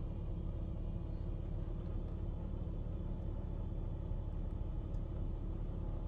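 Volvo XC90's 3.2-litre straight-six engine idling steadily at about 1,000 rpm, heard from inside the cabin as a low, even rumble.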